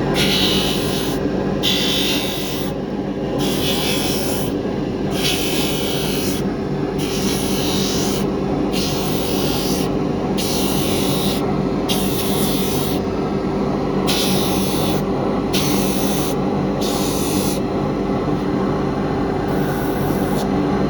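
A shoemaker's grinder running with a steady hum while the bottom of a lasted sneaker is pressed against it in repeated passes, each a rasping, hissing grind of about a second, roughly every second and a half, with a short pause near the end. This is the bottom being ground flat before the sole is cemented on.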